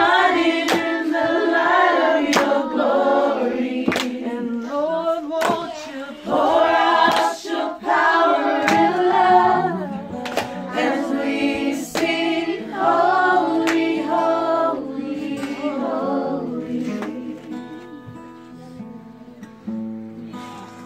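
A group of people singing together, accompanied by a strummed acoustic guitar. The voices die down near the end while the guitar carries on.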